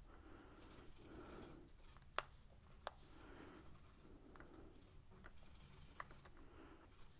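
Faint, irregular key presses on a handheld label maker's keypad as a label is typed, with a handful of sharper clicks spread through.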